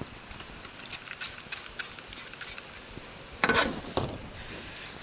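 Cleaning a toolbox surface with a spray bottle of soapy water and paper towels: scattered light clicks and taps, then a short loud rush of noise about three and a half seconds in and a smaller one just after.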